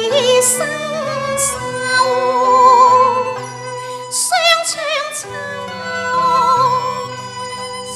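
A woman singing Cantonese opera into a microphone: long, drawn-out notes with strong vibrato over an instrumental accompaniment.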